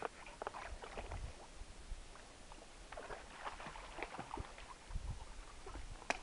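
Footsteps and rustling on a sandy creek bank with dry leaves and grass: scattered light crackles and scuffs, and a sharper click near the end as the boy jumps across the water with his stick.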